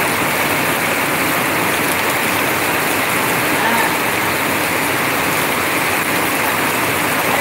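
Heavy rain falling steadily and hard, with water pouring off the roof edge in streams.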